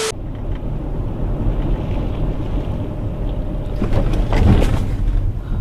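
Low, steady road rumble inside a car, picked up by a dashcam while driving, with a few light knocks about four seconds in. Right at the start, a split second of TV-static hiss with a steady tone.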